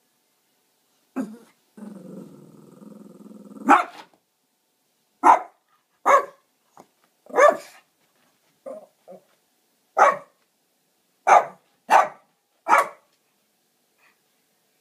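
Shih Tzu growling low for about two seconds, then barking about eight times at uneven intervals, with a couple of softer barks in between: demand barking for a drink of water.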